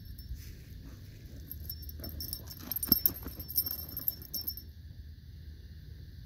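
Husky digging in gravelly dirt with its front paws, scratching and scattering soil, while the metal on its harness jingles with the strokes. The jingling and scratching stop about three-quarters of the way in.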